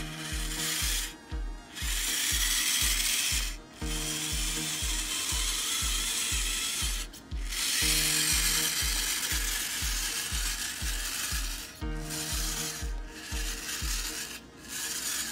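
Homemade remote-control model tractor's small electric motor and gearbox whirring and grinding as it drives through loose sand and gravel. Under it runs background music with a steady low beat, about two and a half thuds a second.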